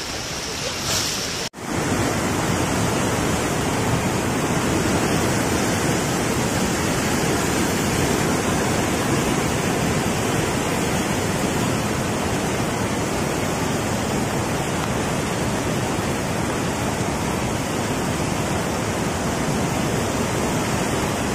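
Steady, even rush of water with no rhythm or pauses, apart from a brief break about a second and a half in where the sound drops out and comes back.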